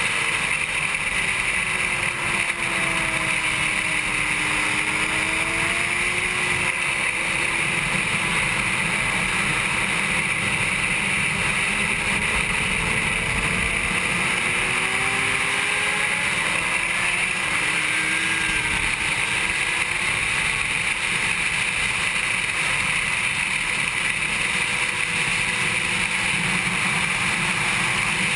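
Onboard sound of a 2007 Honda CBR600RR inline-four at racing speed, mostly buried under a steady rush of wind on the camera, with a faint engine note that rises and falls as the throttle changes.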